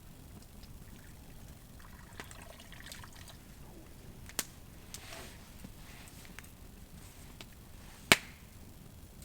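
Soft handling and scuffing sounds, with two short sharp snaps, about four seconds in and a louder one about eight seconds in.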